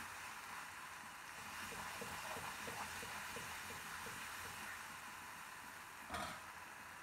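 Chopped onion and tomato sizzling in oil in a wok, with a spatula stirring and scraping the pan in a run of short strokes. One sharp knock comes about six seconds in, when the spatula stops stirring.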